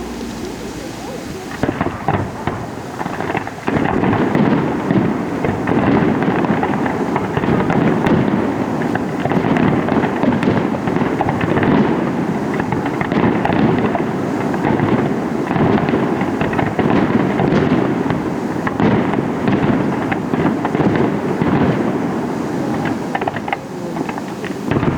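Fireworks display in full barrage: a dense, continuous run of bangs and crackles that starts about two seconds in. Before it a steady hum is heard briefly.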